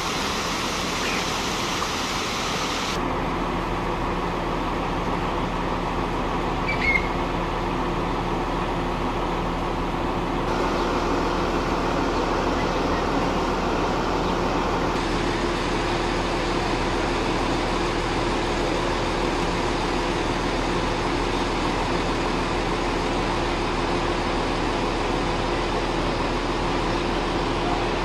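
Fountain water splashing with a steady hiss for about the first three seconds, then a steady outdoor background hum with a few faint droning tones.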